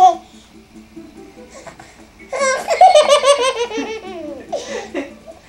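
Six-month-old baby girl laughing: a loud run of quick, pulsing belly laughs starting about two seconds in and lasting over a second, then a shorter laugh near the end.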